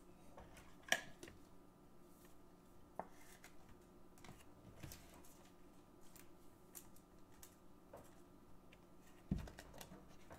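Faint handling of trading cards and plastic card sleeves on a tabletop: soft rustles and a scattering of light clicks and taps, the sharpest about a second in, over a low steady hum.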